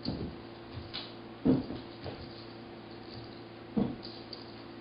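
Three dull thumps, a soft one at the start and louder ones about a second and a half in and near the end, over a faint steady hum.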